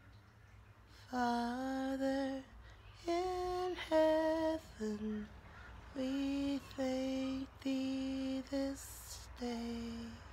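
A woman singing a slow lullaby in long, held notes, starting about a second in.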